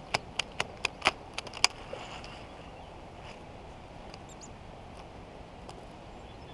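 Baitcasting reel clicking sharply about ten times in the first two seconds as it is worked by hand, the reel jamming. After that only a faint steady outdoor hiss.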